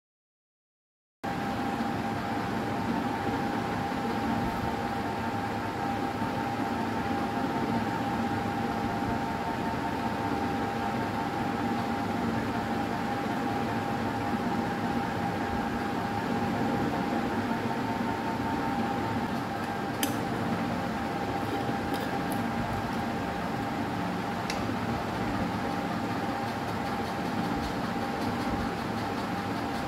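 Steady hum of a running electric motor with a constant whine, starting after a brief moment of silence; a few faint clicks come in around two-thirds of the way through.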